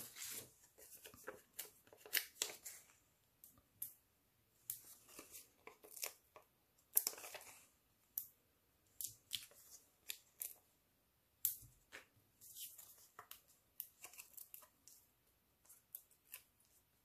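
Foam adhesive dimensionals being peeled from their backing sheet and pressed onto a paper card layer: faint, irregular crackles, small tearing sounds and clicks of paper handling.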